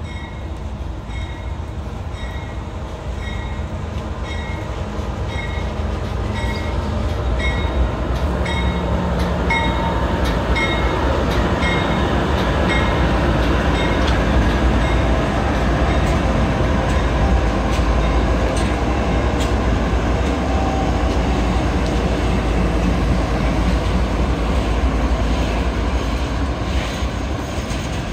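CSX diesel locomotives leading a slow coal train pass close by with engines running and wheels on rail, growing louder as the lead units go by. A repeated ringing tone sounds through roughly the first ten seconds.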